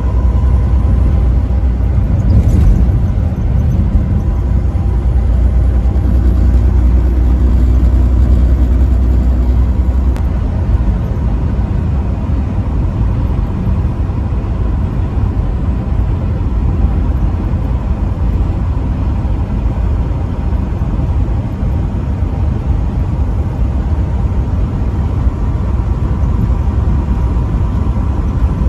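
Steady road noise of a vehicle driving on a highway: tyre and engine rumble, heavier in the low end for the first ten seconds or so, then easing a little.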